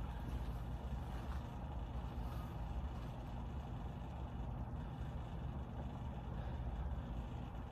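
Steady low rumble of room background noise, with no distinct events.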